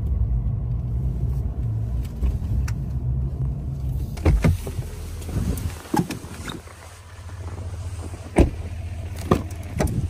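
Steady low rumble of a pickup truck driving, heard from inside the cab. From about four seconds in comes a run of sharp clicks and clunks, and the rumble drops away about halfway through as the truck stops.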